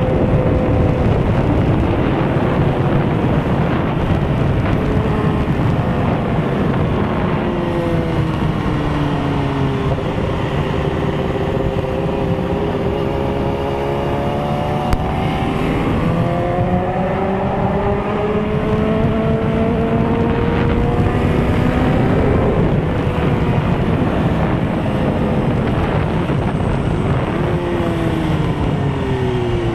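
Litre-class sport motorcycle engine heard from the rider's seat at speed, its pitch repeatedly rising and falling as the throttle is opened and rolled off through the bends, over a dense rush of wind noise.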